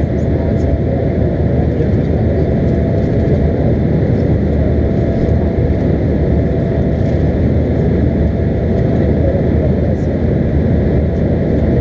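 Steady cabin noise inside an Embraer 195 jet airliner in flight: the drone of the turbofan engines and the rush of air along the fuselage, with a faint steady hum running through it.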